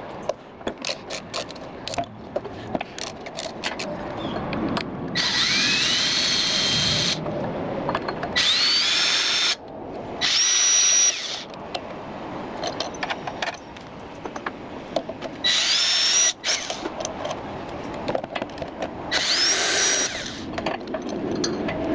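A hand ratchet clicking quickly, then a cordless power drill/driver running in five short bursts. Each burst spins up with a rising whine, as the tool backs out the Briggs engine's cylinder head bolts.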